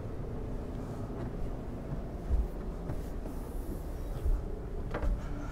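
Footsteps going down an indoor stairway: a few dull, low thumps with some rubbing and handling noise, over a steady low background hum.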